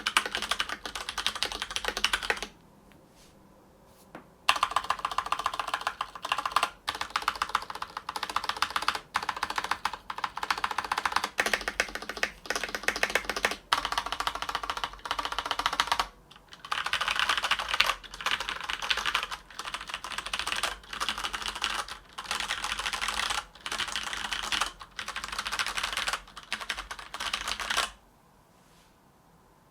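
Steady typing on a Filco Majestouch 2 keyboard with stock Cherry MX Brown tactile switches, broken in over more than ten years of use, its stabilizers tuned. The typing pauses briefly a couple of seconds in, then runs on and stops near the end.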